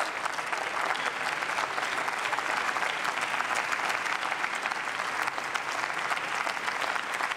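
Applause from many people clapping, a dense steady patter of hands that holds at an even level throughout.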